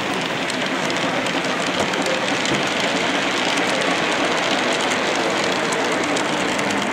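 Model train running past on layout track: a BR blue Class 37 diesel model hauling coaches, its wheels rattling steadily over the rails with faint clicking.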